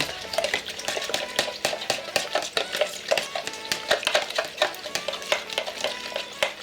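Salt water being stirred in a container, the utensil clicking rapidly and irregularly against its sides as the salt dissolves. Faint background music plays underneath.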